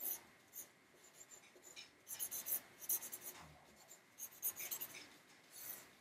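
A Sharpie marker's felt tip drawing short strokes on a large sheet of paper: faint, scratchy marker-on-paper sounds in a few quick clusters.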